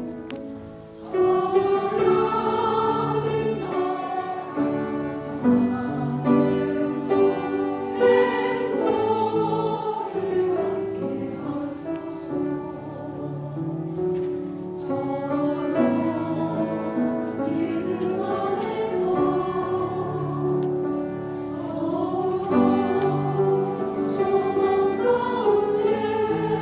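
A church choir singing a hymn, several voices together. The sound dips briefly about a second in, then the singing comes back in strongly.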